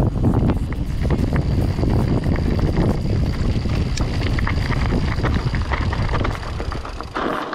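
Heavy wind buffeting the microphone as an Orbea Oiz mountain bike rolls fast down a loose rocky gravel track, its tyres crunching over stones and the bike rattling with frequent sharp clicks. The wind noise drops away near the end.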